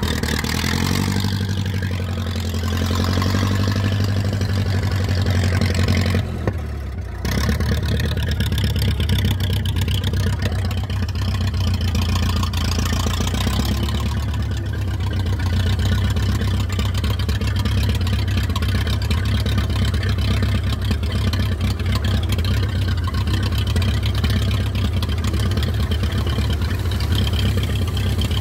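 Ferguson tractor engine running, heard from the driver's seat. Its note shifts up and down for the first few seconds, drops briefly about six seconds in, then runs steadily.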